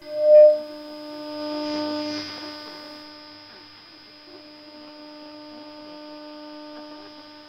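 A strong steady jamming tone on a shortwave AM broadcast frequency, heard through an internet-streamed remote receiver: one pitch with a row of higher overtones, with faint static under it. It starts with a sharp loud blip as the audio comes in, is loudest over the first two seconds, then settles lower and steady. The tone is jamming the station so that it cannot be heard.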